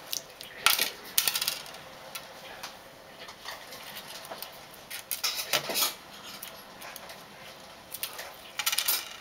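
The shell of a hard-boiled egg crackling and clicking as it is picked off by hand, in several short bursts, with small shell pieces ticking onto a tray.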